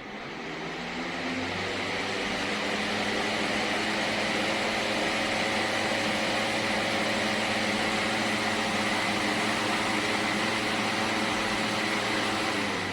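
Pelonis 20-inch four-blade box fan running: a steady rush of air with a motor hum and several steady tones under it. It grows louder over the first second or two, then holds steady.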